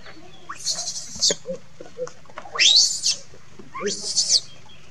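Baby macaque screaming in distress: three high-pitched cries about a second and a half apart, each sweeping up in pitch, the middle one the loudest.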